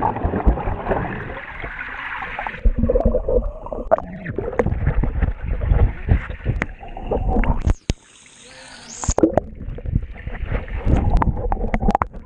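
Muffled rush of churning water and bubbles heard through a camera held underwater in a swimming pool, with many dull knocks and thumps from the camera being moved about. The sound drops away suddenly for a moment about eight seconds in.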